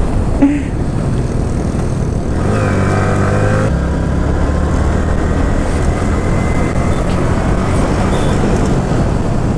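Yamaha R15 V3's 155 cc single-cylinder engine running at road speed. About two and a half seconds in, its note rises for a second or so as the bike accelerates, then runs steadily.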